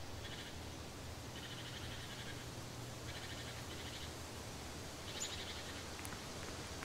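Quiet outdoor ambience with a steady low hum and several short bursts of faint, rapid chirping trills from small creatures.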